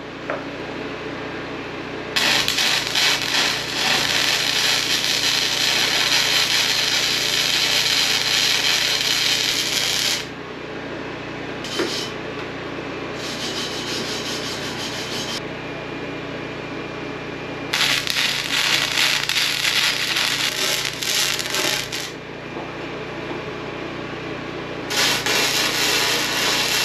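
Arc welding on square steel tubing: a steady crackle in several separate runs, the first about eight seconds long and the others two to four seconds, with short pauses between welds.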